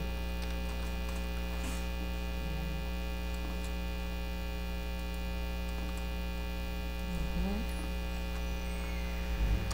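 Steady electrical mains hum: a constant low buzz with a ladder of evenly spaced overtones, picked up by the recording's microphone chain.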